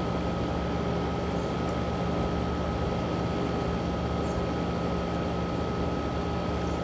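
1969 Fedders 8,000 BTU window air conditioner running steadily. Its Tecumseh AJ reciprocating compressor gives a low, even hum under a steady rush of air, with a thin higher tone held throughout.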